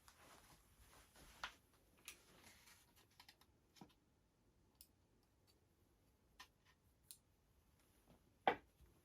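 Scattered light clicks and taps from handling the parts of an H&K G11 airsoft electric gun, with one louder, sharper click near the end.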